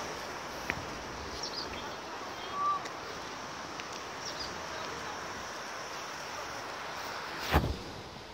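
Steady outdoor wind-like noise with a few short bird chirps, and a single sharp thump near the end.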